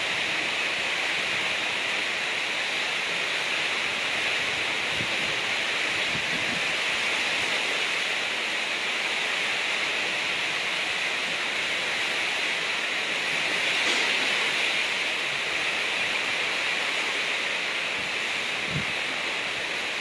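Steady storm roar of strong wind and heavy rain over a rough sea, swelling briefly about fourteen seconds in.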